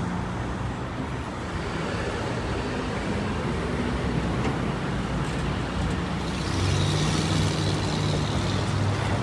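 City street traffic: a steady rumble of cars on the avenue. About two-thirds of the way in, a vehicle engine's low hum grows louder close by.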